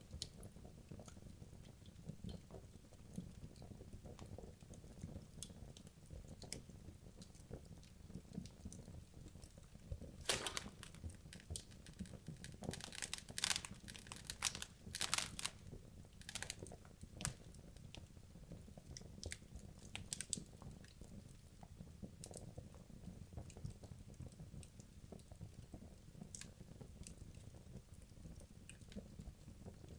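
Wood logs burning in a fireplace: a low steady rumble of flame with scattered sharp crackles and pops, which come thickest and loudest through the middle of the stretch.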